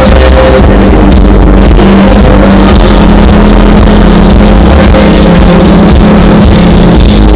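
Live rock band playing through a big outdoor concert PA, recorded very loud, with the level pinned near the top throughout.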